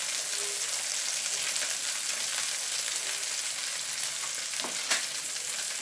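Burger buns frying in butter in a pan over low heat: a steady sizzle, with two short knocks a little before the end.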